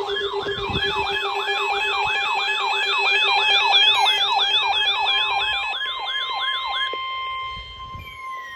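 Electronic siren yelping, its pitch sweeping up and down about three times a second over steady tones. About seven seconds in the yelp stops and a steady high tone carries on alone, with a falling pitch glide starting near the end.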